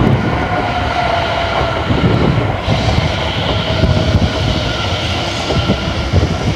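Greater Anglia Class 720 Aventra electric multiple unit running close past on the platform line: a loud rumble of wheels on rails with a steady whine from the train.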